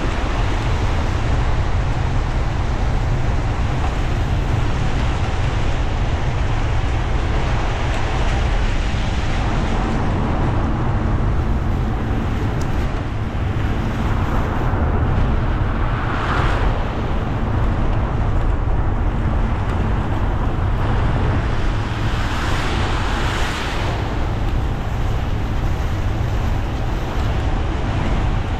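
Car driving on rain-wet roads: a steady deep road rumble under a constant hiss of tyres on wet tarmac. The hiss swells briefly twice, a little past halfway and again later on.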